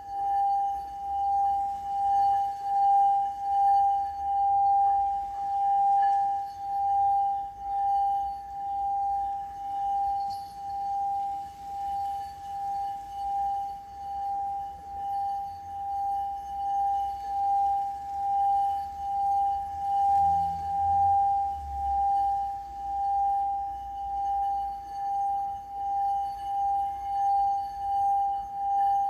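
Singing bowl ringing with one sustained, steady tone and faint higher overtones, wavering in a regular pulse about one and a half times a second.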